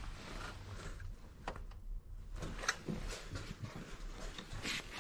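Rubber hoses being pulled off the plastic air filter box and engine cover of a VW 1.0 MPI engine by hand: scattered rubbing and handling noise with a few sharper clicks.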